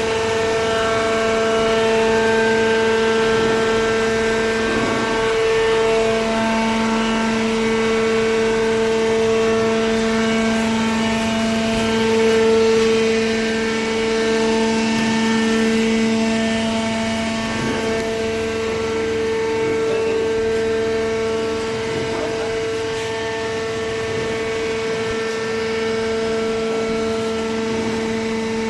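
A cardboard baler's machinery running with a steady, pitched mechanical hum. The lower tone drops out briefly about five seconds in, then returns.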